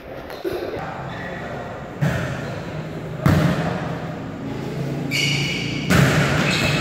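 Volleyball being struck during a rally on an indoor gym court: three sharp smacks, about two seconds in, just past three seconds and near the end, the last two the loudest, echoing in the hall. Players call out and shout over them.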